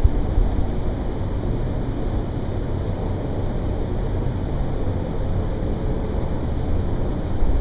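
A constant deep rumble of unknown origin coming from the sky, steady and unbroken, mostly low pitch; not from a plane or a road, and felt as a vibration.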